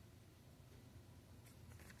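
Near silence: a faint steady low room hum, with a couple of faint light ticks in the second half.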